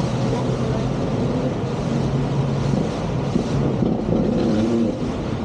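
Motorboat engine running steadily under way, with rushing wind and water noise; its low hum fades into the noise about three seconds in.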